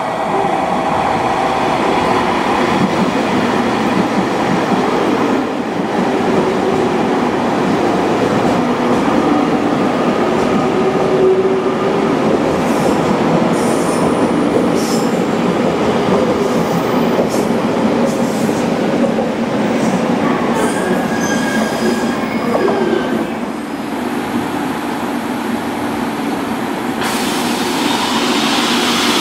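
JR Kyushu 883 series electric limited-express train running through a curve past the platform: a steady rumble of wheels on rail, with thin squealing tones from the wheels at times. About 27 seconds in, the sound changes abruptly to a brighter hiss.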